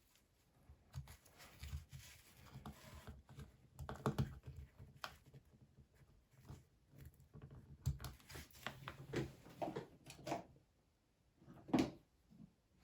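Irregular small clicks and scraping as a small pry tool works at the plastic clips of a Ford three-button remote key fob case, with a few sharper clicks along the way.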